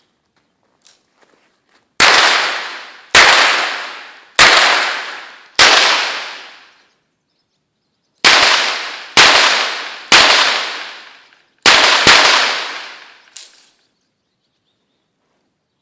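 Pistol shots fired outdoors: four shots about a second apart, a pause of two seconds, then five more, the last two close together. Each crack trails off in a ringing echo lasting about a second.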